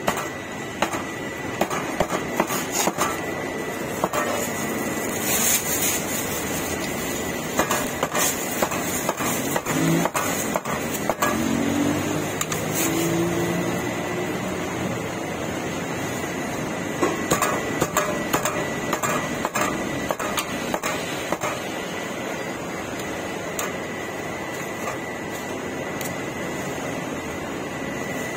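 Irregular sharp knocks and clatter over a steady background hum with a thin high tone, with faint voices near the middle.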